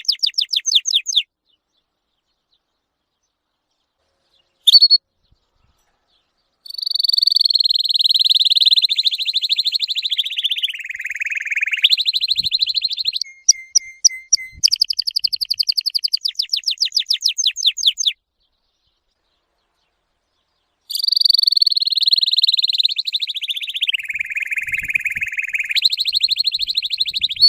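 Songbird singing long, rapid trills, some held high and some sliding down in pitch, broken by two spells of complete silence and a short click about five seconds in.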